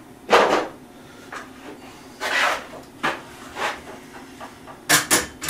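Knocks and clatter of framing tools being handled on a sawhorse and lifted overhead. One loud knock comes about half a second in, a few lighter ones follow, and a quick run of sharp knocks comes near the end.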